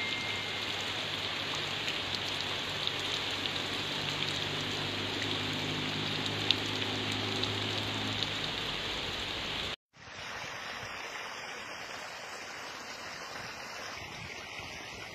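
Rain falling steadily onto standing water and thatched roofs: a dense hiss with scattered drop ticks. About ten seconds in it cuts off abruptly and gives way to a quieter, even hiss.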